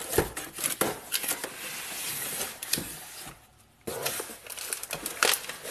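Cardboard packaging being opened and handled: rustling, scraping and crinkling of cardboard, with a brief quiet gap a little past halfway.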